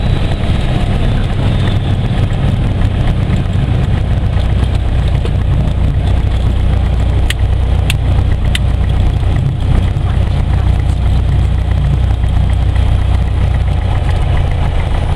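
Light single-engine aircraft's piston engine and propeller running at idle during the landing rollout, heard from inside the cockpit as a loud, steady low drone. Three sharp clicks come about halfway through.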